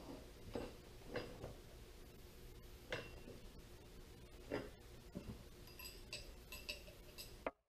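Faint scattered clicks and taps of small steel parts being handled against a hydraulic lift cylinder, with a quick run of light, ringing metallic clinks near the end, over a faint steady hum. The sound cuts off suddenly just before the end.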